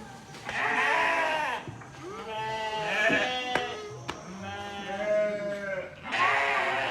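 Sheep bleating: four long calls in a row, each wavering in pitch.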